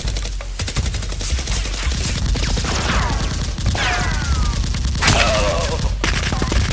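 Rapid automatic gunfire sound effects dubbed over toy blasters: a dense stream of shots many times a second, with several falling whistling tones layered over it.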